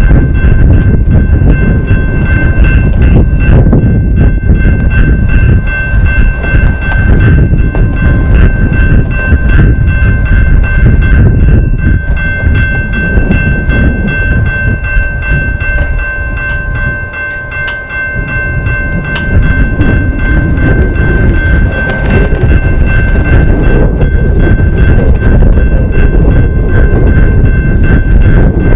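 Railroad crossing warning bells ringing steadily over a loud low rumble that dips briefly about two-thirds of the way through.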